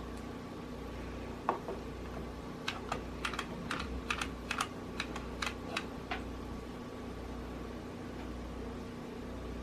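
An irregular run of about a dozen small clicks and taps, between about one and a half and six seconds in, from hands working a hot glue gun, feathers and a wire toy bird cage. A steady low hum runs underneath.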